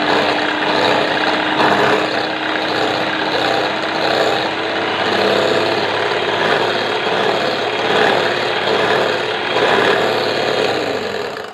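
Electric hand mixer running steadily, its beaters whipping cream in a glass bowl to stiff peaks. The motor winds down and cuts off near the end.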